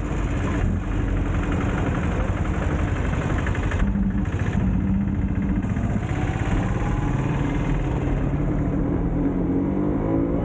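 Motorcycle engine running steadily while riding, its pitch shifting in the second half.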